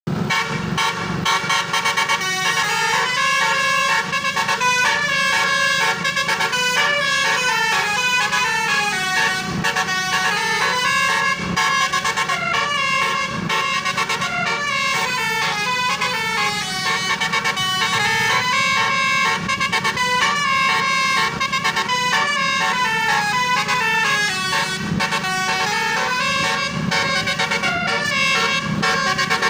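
Indonesian bus 'telolet basuri' horn, a multi-trumpet electric horn, playing a continuous quick melody of stepping notes, several a second, rising and falling.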